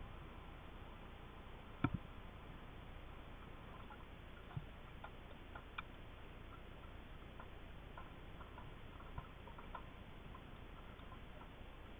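Underwater ambience picked up by a submerged camera: a steady low hiss with scattered small clicks and ticks, the loudest a sharp double knock about two seconds in.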